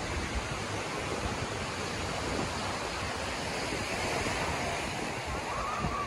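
Steady wash of surf breaking on a sandy beach, with wind buffeting the microphone.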